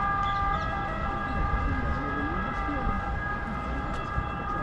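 A distant siren holding steady tones, with wind rumbling on the microphone and faint voices.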